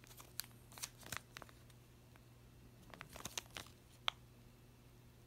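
Clear plastic zip-lock bag holding a WWAN card crinkling as it is handled in the hand, in two short spells of crackles, with one sharp click about four seconds in.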